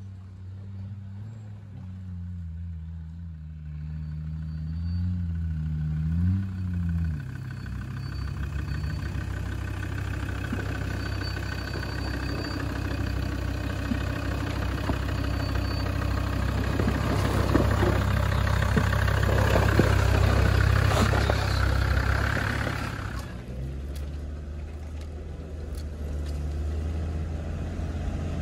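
Land Rover Discovery Td5's five-cylinder turbodiesel engine working off-road. Over the first several seconds the revs rise and fall a few times. It then settles into a steady, heavier run with a rough rushing noise over it that builds and then drops away about three-quarters of the way through, leaving the engine running lower and steadier.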